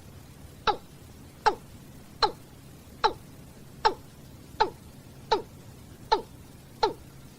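Watercock giving its flock-gathering call: short, loud notes that each slide downward in pitch, repeated at an even pace of about one every 0.8 seconds, nine times.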